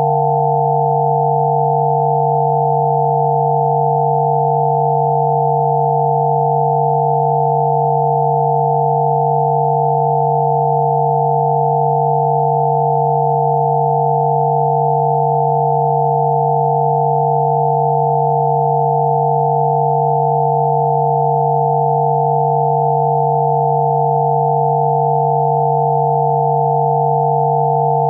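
Synthesized 'healing frequency' tones: several steady electronic sine tones layered together, one low hum beneath a few higher pure tones, held unchanging throughout.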